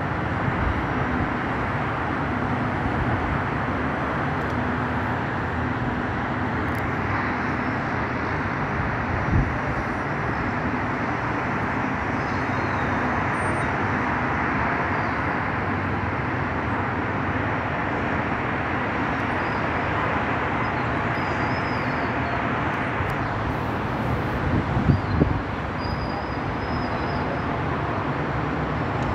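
Steady hum of city traffic from the roads below, a continuous wash of many distant vehicles. A brief bump comes about nine seconds in and a few more near the end.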